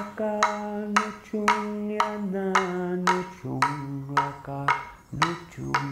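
A man chants a traditional Aboriginal song in long held notes that step down in pitch, keeping time with wooden clapsticks struck together about two to three times a second.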